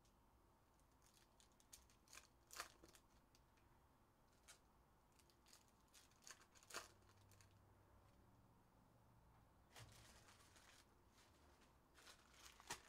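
Faint clicks and light rustling of trading cards being handled and squared into stacks on a table, with a few sharper clicks scattered through.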